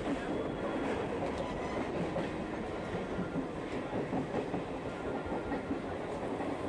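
Local passenger train running, heard from inside a crowded carriage with its doors open: a steady noise of the wheels and carriage on the track.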